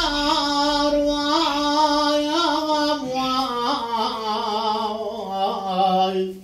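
An unaccompanied man's voice sings an Elazığ-style Turkish folk melody, drawing out a long, ornamented line on held vowels that steps gradually lower in pitch.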